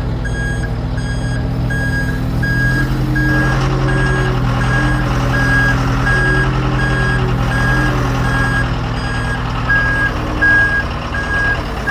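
John Deere backhoe backing up: its back-up alarm beeping in an even rhythm over the running diesel engine, whose revs rise about three seconds in.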